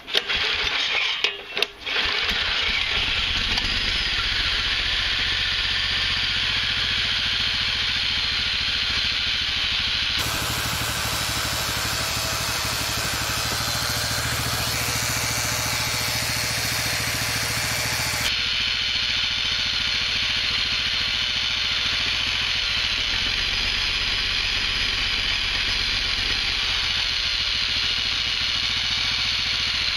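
Honda GX390 single-cylinder four-stroke engine with a belt-driven 3D-printed regenerative supercharger, pull-started: a couple of short tugs on the recoil starter, then it catches about two seconds in and keeps running steadily. The long-stored engine is short of fuel, which the owner blames on a fuel hose that is too flimsy.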